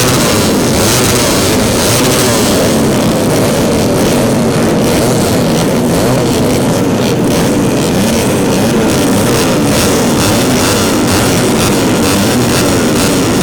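A pack of 150 cc four-stroke underbone racing motorcycles at full throttle, many engines overlapping and rising and falling in pitch as they rev and shift.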